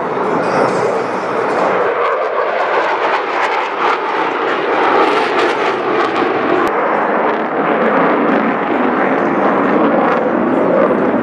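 Loud, steady rushing jet noise of a USAF Thunderbirds F-16 flying a minimum radius turn overhead.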